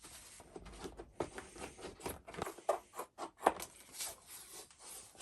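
Irregular small knocks, clicks and rustles of vise parts being handled after a soak in rust remover.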